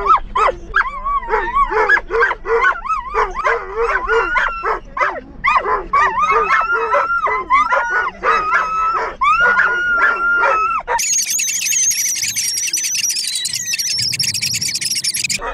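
Several excited German shorthaired pointers howling, yipping and barking together inside a car, with overlapping rising and falling howls and some long held notes. From about eleven seconds in, the sound turns thin and very high-pitched.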